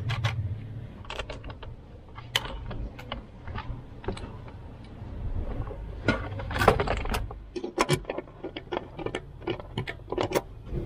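Scattered clicks and rattles of plastic dashboard trim, a switch panel and wiring being handled and fitted back under the dash, over a low steady rumble.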